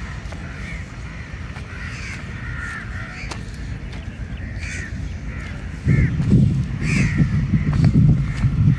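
Crows cawing repeatedly, short calls again and again. A low rumbling noise sits beneath them and grows much louder over the last three seconds.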